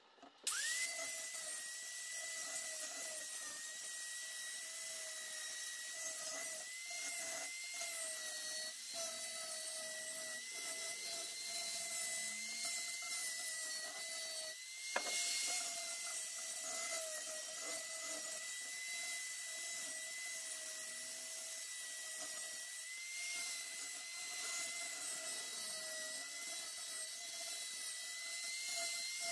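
Electric angle grinder spinning up about half a second in, then running with a steady high whine as its disc is worked over the welded steel frame of a stool. Near the middle the sound dips briefly and there is a sharp click.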